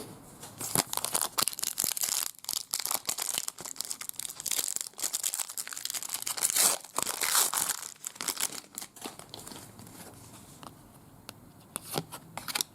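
Trading card pack wrapper being torn open and crinkled by hand, a dense crackly rustle that thins out about three-quarters of the way through to a few light clicks of the cards being handled.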